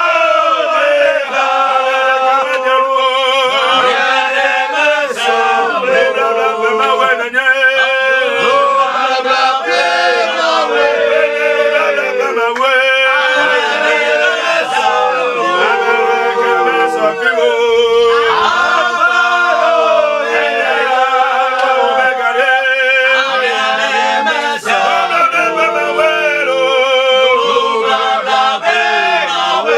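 Men's voices singing a worship song together, unaccompanied, with long held, wavering notes.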